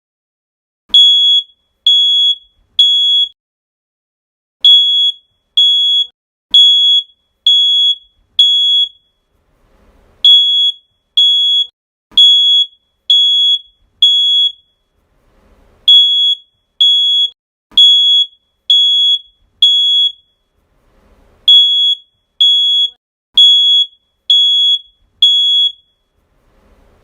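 Fire alarm beeping: loud, high-pitched electronic beeps about once a second, in groups of five with a short pause between groups.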